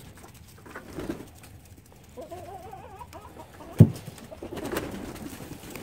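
Free-ranging chickens making soft, warbling calls, with a trilling call about two seconds in and fainter calls around it. A sharp knock comes a little before four seconds.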